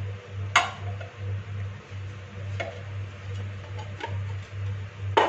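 Ceramic dinner plates clinking and knocking against each other and the granite countertop as halwa is flipped between two plates: a sharp clink about half a second in, lighter knocks later, and two clinks close together near the end.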